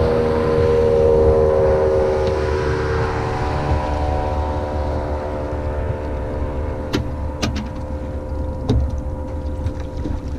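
Boat motor running with a steady drone, with a few sharp knocks about seven to nine seconds in.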